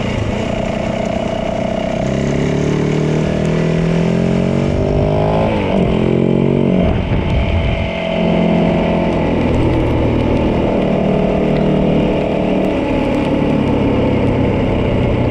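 Yamaha 450 dirt bike's single-cylinder four-stroke engine running as the bike is ridden. Its pitch climbs for a few seconds, drops sharply about halfway through, then holds steady.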